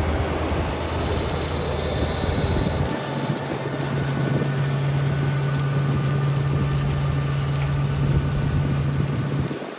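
TYM 574 diesel tractor running steadily while driving a rear flail mower through grass. About three seconds in, the engine note shifts to a steady, higher hum. The sound drops away sharply just before the end.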